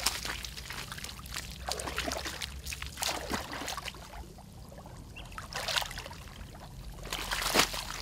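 Hands scooping and working wet mud in shallow muddy water, with irregular splashes and water pouring and dribbling off.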